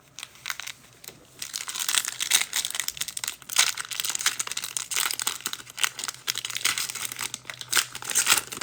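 Foil wrapper of a football trading card pack being torn open and crinkled by hand, an irregular crackling that starts lightly and grows busy after about a second.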